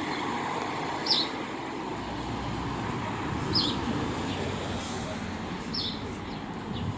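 Road traffic going by with a steady rumble, and a bird giving a short, high, falling chirp three times, about two and a half seconds apart.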